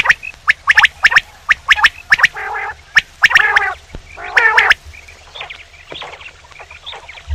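Male quail calling: a quick series of sharp, clipped notes mixed with a few longer, harsher calls, growing fainter after about five seconds.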